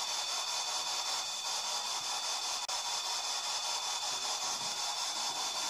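Steady hiss of the recording's own noise with a faint constant high-pitched whine, cutting out for an instant about two and a half seconds in.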